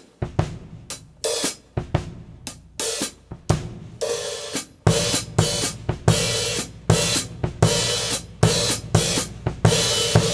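Drum kit played with sticks, picked up by a single condenser microphone. Scattered snare and cymbal hits at first, then from about four seconds in a steady groove with a constant cymbal and hi-hat wash.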